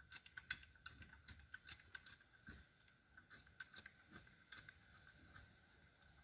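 Faint, irregular clicks and scrapes, several a second, of a four-tined hoe working loose garden soil between potato rows.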